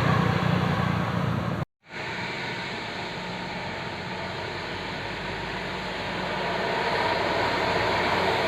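Roadside traffic noise: a vehicle engine running with a low hum, cut off abruptly about two seconds in, then steady road noise that grows louder toward the end as traffic approaches. No horn sounds.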